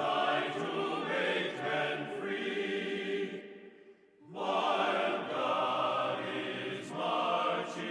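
Background music of a choir singing sustained chords, fading briefly about halfway through before coming back in.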